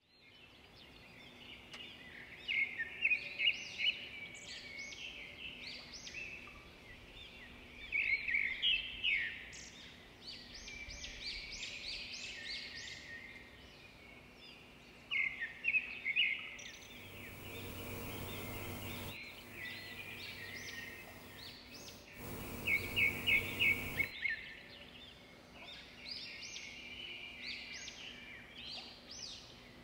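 Birds chirping and singing in short flurries every few seconds, over a faint steady hum, with two brief stretches of hiss about halfway through.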